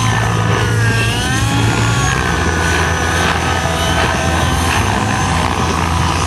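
Radio-control helicopter flying hard 3D manoeuvres, its motor and rotor whine sweeping up and down in pitch as it throws the blades through fast changes.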